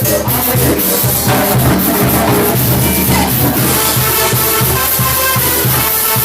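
Cumbia music with a steady beat of bass and percussion.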